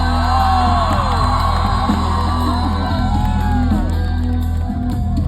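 Live band playing loud between sung lines, with crowd shouts and whoops mixed in.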